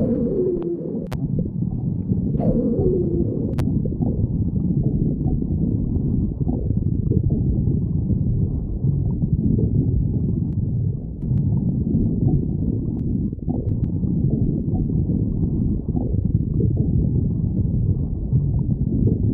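A person's stomach growling and gurgling in a continuous, uneven low rumble. Two short falling squeal-like tones come in the first few seconds.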